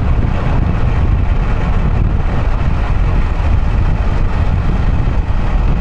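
Steady wind rush on the microphone of a moving Yamaha YBR125 motorcycle, with its single-cylinder four-stroke engine and road noise running underneath.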